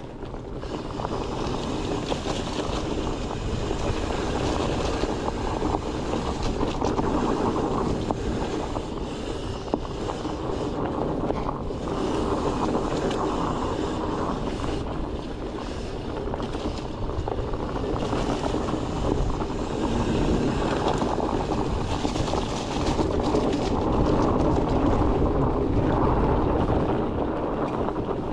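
Fat-tyre mountain bike rolling fast down a dirt trail covered in dry leaves: continuous tyre rumble and trail rattle, with wind buffeting the microphone, a little louder in the second half.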